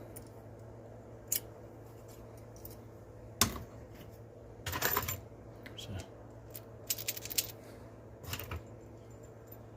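Enamel doorknobs being handled, clicking and clinking against each other and a hard surface in scattered short knocks, over a steady low hum.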